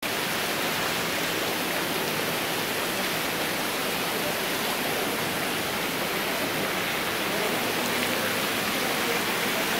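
Small waterfall: water falling in thin streams down a mossy rock face, making a steady, even hiss.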